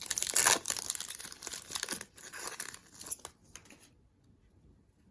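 Foil wrapper of a trading-card pack being torn open and crinkled, a dense crackling rustle that stops about four seconds in.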